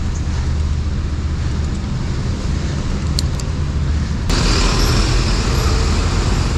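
Street traffic noise: a steady low rumble of road vehicles, heard from a moving bicycle. About four seconds in, the sound turns suddenly louder and hissier.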